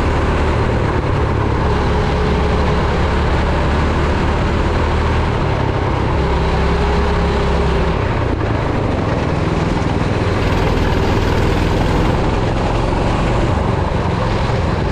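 Go-kart engine running under load as the kart is driven around a track, its pitch dropping and rising a few times through the corners.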